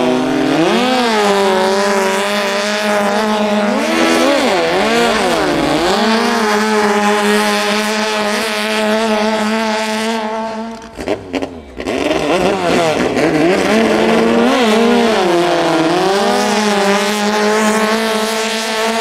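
Toyota 5K four-cylinder engine of a longtail racing boat revving hard, its pitch swinging up and down as the throttle is blipped, then holding steady at high revs. There is a brief break about eleven seconds in, after which the revving swings and steady high running repeat.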